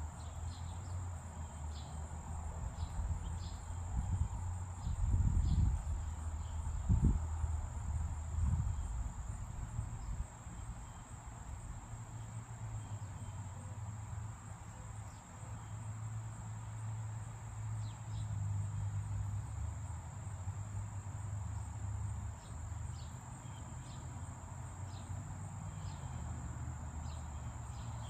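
Insects trilling in one high, steady note, with faint short high chirps scattered over it. Underneath is a low rumble with a few louder thumps about five and seven seconds in.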